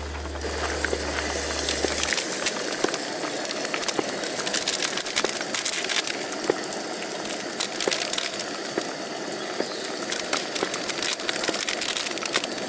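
A pot of sausage and vegetable soup simmering on a propane camp stove, with dense, irregular bubbling and crackling clicks.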